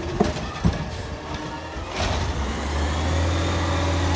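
Diesel engine of a CCC LET2 garbage truck with a McNeilus ZR side-loader body, running and then pulling harder and louder from about halfway as the truck moves off. Two knocks in the first second, and a loud air hiss, typical of an air brake, right at the end.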